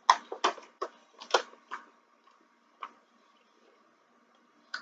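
A person chewing a mouthful of double cheeseburger close to the microphone: a quick run of short, wet mouth clicks in the first two seconds, thinning out to a few after that.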